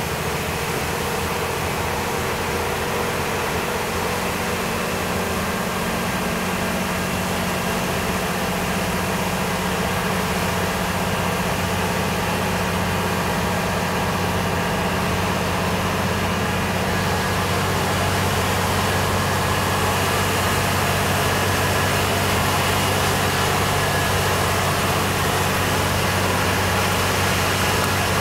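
Truck engine running steadily under way, heard from inside the cab as a low, even drone over the hiss of tyres on the wet road.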